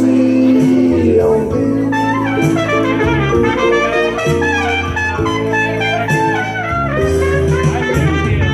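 Live band playing a slow blues: a trumpet plays the lead line over electric guitar, with no singing.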